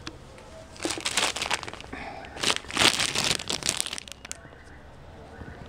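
Thin plastic bag around a laptop power adapter crinkling as it is handled, in two bursts: the first about a second in, the second, louder one from about two and a half to four seconds in.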